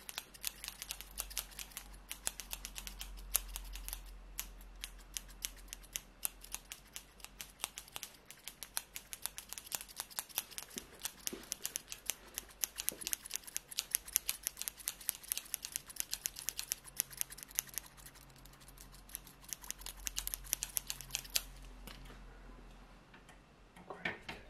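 Haircutting scissors snipping rapidly close to the microphone, a long run of quick sharp snips that stops about three seconds before the end.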